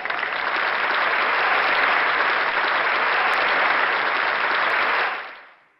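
Crowd applause: steady clapping that starts abruptly and fades out smoothly near the end, typical of an added applause track.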